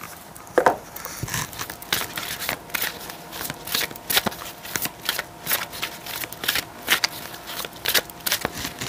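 Deck of tarot cards being shuffled by hand, with quick irregular clicks and slaps of cards several times a second.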